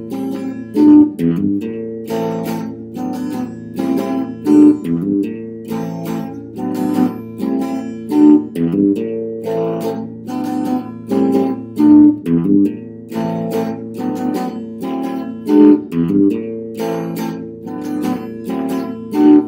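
Instrumental music of a strummed guitar playing a repeating pattern, with a loud accented strum about every three and a half seconds.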